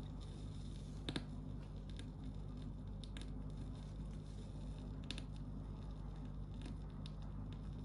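Stylus tracking the silent groove of a 16 2/3 rpm record on a Philips record player: a steady low hum and surface hiss with scattered clicks and crackle from scratches in the vinyl, the loudest click about a second in.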